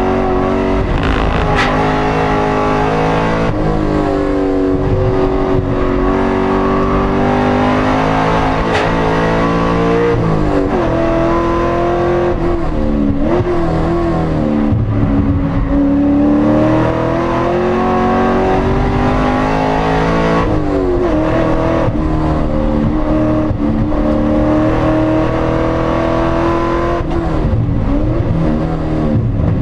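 Corvette engine running under way, its pitch holding steady for stretches and dipping and rising several times as the revs change.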